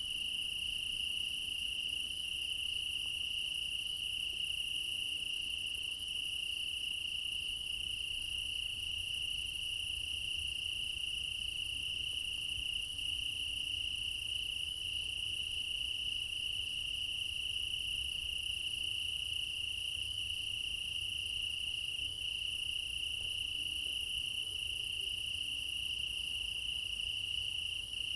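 Crickets chirping in a dense, continuous chorus at night, a steady high-pitched trill that never lets up.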